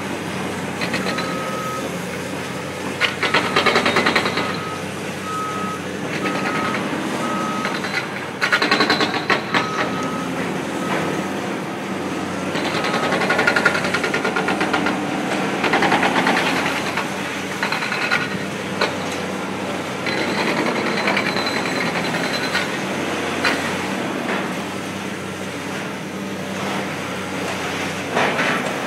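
CAT hydraulic excavator's diesel engine running as it demolishes a concrete building, with bursts of crunching and clattering concrete debris a few seconds in, around nine seconds and again around sixteen seconds. A reversing alarm beeps about once a second through the first half.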